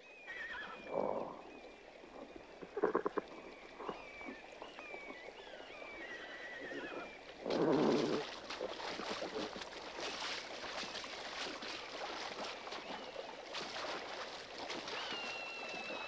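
A sound-effects soundscape of high, wavering animal calls that fall in pitch, with splashing and a rushing, crackling wash of water that grows fuller about halfway through.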